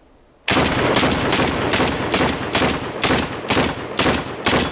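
Universal M1 Enforcer pistol in .30 Carbine fired rapidly in semi-auto, about ten shots at roughly two a second starting about half a second in. Each shot rings out with echo that carries into the next.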